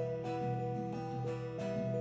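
Acoustic guitar strumming chords, with an electric guitar playing long held single notes that change pitch every second or so; no singing.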